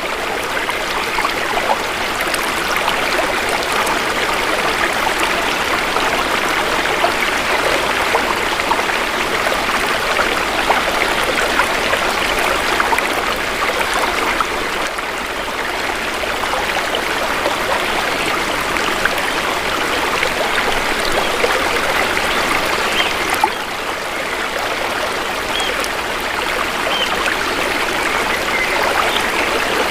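Shallow river water flowing and trickling, a steady even rush with no breaks.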